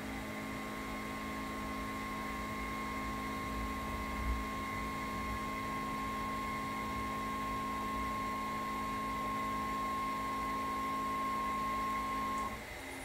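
Stepper motors of a CNC router run by a Gecko G540 stepper drive, whining steadily while the Z axis jogs the spindle slowly down. The whine cuts off shortly before the end as the jog stops.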